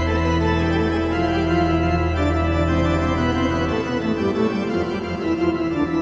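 Roland GR-55 guitar synthesizer sounding a pipe organ patch, played from a guitar: sustained organ chords. The deep bass note drops out a little under four seconds in.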